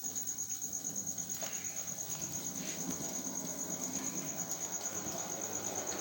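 Small electric motor of a model J17 locomotive running on track, a steady low hum with a light rhythmic ripple, over a continuous high-pitched pulsing whine.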